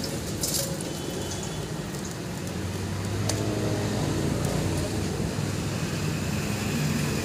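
Low, steady hum of a motor vehicle engine running nearby, growing a little louder about two and a half seconds in. A few faint clicks come from small metal engine parts being washed by hand in a steel bowl of petrol.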